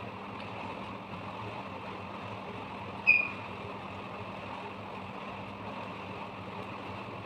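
Steady background hum with one short, sharp ringing clink about three seconds in.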